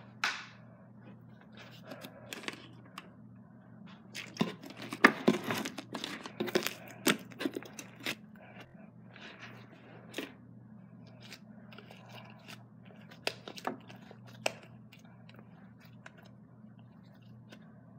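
Sticky glue slime being mixed and worked by hand as more activator goes in: wet tearing, smacking and squishing noises with sharp clicks and knocks. They come thickest in a burst of handling about four to eight seconds in, then in scattered knocks.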